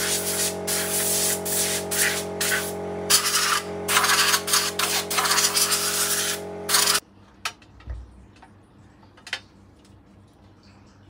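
Pressurised spray hissing in repeated bursts with short breaks, over a steady hum, aimed at a tenor saxophone's body. It stops abruptly about seven seconds in, leaving quiet room tone with a few light taps and clicks.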